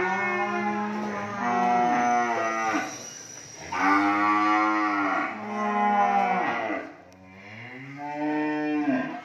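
Cattle mooing: three long, drawn-out moos one after another, each lasting two to three seconds, from young beef cattle penned together.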